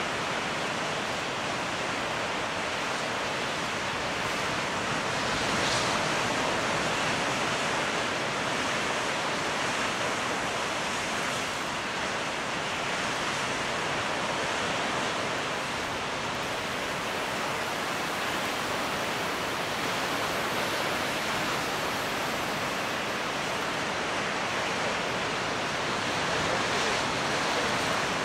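Ocean surf breaking on a rocky shore, heard as a steady, even wash of noise with only slight swells in level.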